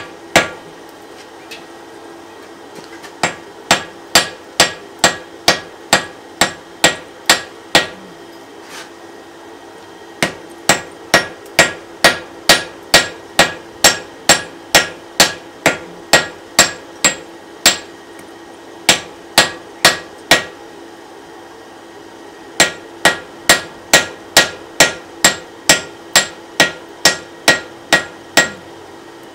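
Hand hammer striking a glowing wrought iron hammer blank on a steel anvil, with ringing blows at about two a second. The blows come in runs, with a few short pauses between them.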